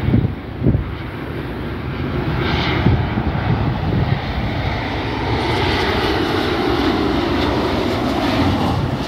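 Twin-engine jet airliner on landing approach with its gear down, its engine noise building as it comes in low, loudest in the second half. Wind buffets the microphone in the first second.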